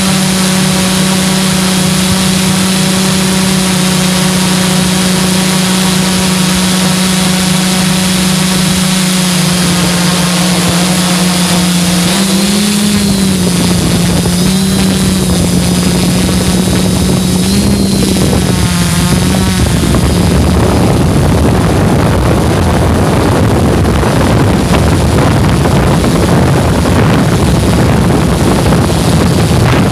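Hexcopter's six electric motors and propellers droning close to the microphone, a steady hum at first that wavers up and down in pitch around the middle as the throttle shifts. In the last third a rushing wind noise on the microphone largely covers the drone.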